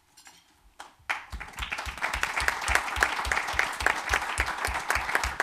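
Audience applauding, starting about a second in with a dense patter of many hands clapping.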